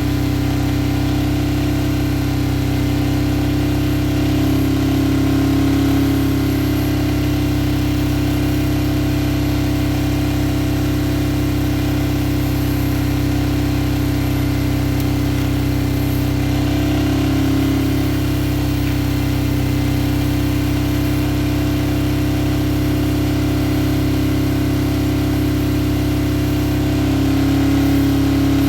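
Toyota engine idling steadily, picking up slightly a few times.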